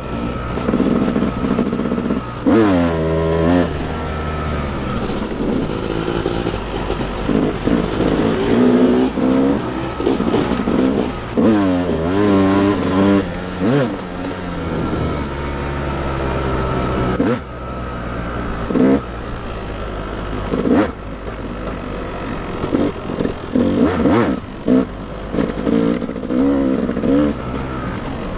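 Yamaha dirt bike engine revving hard under way, its pitch climbing with each pull of the throttle and dropping back at each gear change or throttle-off, over and over.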